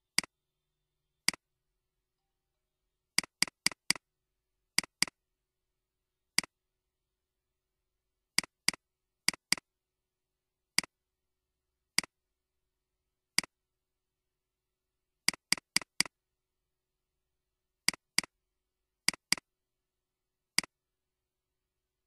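Computer mouse clicks, singles and quick double-clicks in uneven bursts, with dead silence between them.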